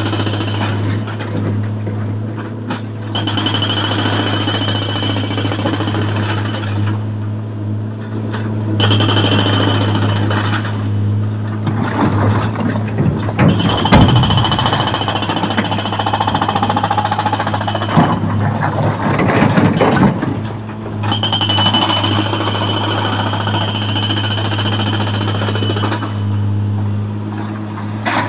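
Sany hydraulic excavator's diesel engine running with a steady drone, and a high hydraulic whine rising and falling in stretches as the boom swings. Louder rough clattering twice, about halfway through and again a few seconds later, as the bucket dumps wet rock and mud into the steel bed of a dump truck.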